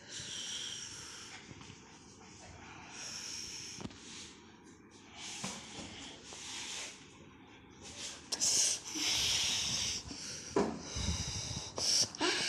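German Shepherd puppy playing and biting at a person's trouser legs, close to the microphone: breathy snuffling and hissing noises in irregular bursts.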